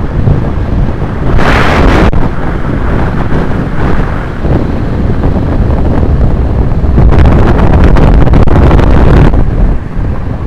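Wind buffeting the microphone of a fast-descending road bike, a loud low rush throughout. It swells into a harsher hiss twice: briefly about a second and a half in, and for about two seconds near the end.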